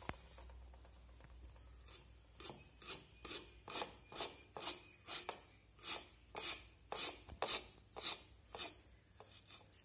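Ginger being scraped against the toothed coconut-scraper head of an aruvamanai (traditional bladed cutting board) to strip its skin. There is a regular series of short scraping strokes, about two to three a second, starting about two and a half seconds in and stopping just before the end.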